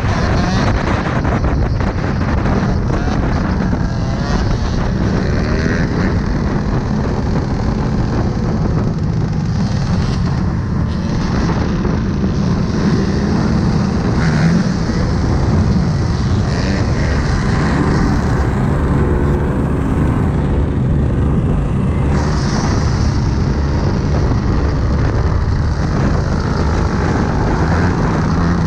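Dirt bike engines running and revving, the pitch rising and falling.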